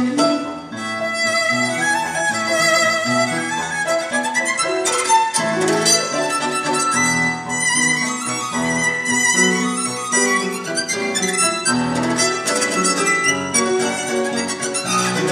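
Solo violin playing a melody with wavering, vibrato-laden held notes, with an orchestra accompanying on lower, sustained notes underneath.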